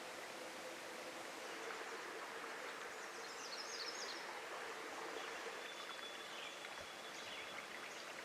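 Small forest trout stream flowing steadily, a faint even rush of water. A bird chirps in a quick series about three seconds in, and a thin high steady note sounds for a couple of seconds later on.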